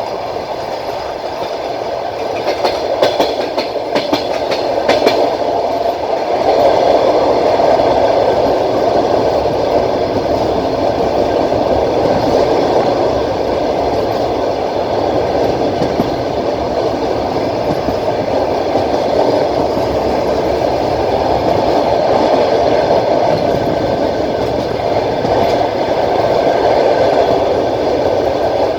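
Passenger train running at speed, heard from aboard the carriage: a steady rumble of wheels on rail, with a quick run of wheel clicks over the rail joints about three to five seconds in.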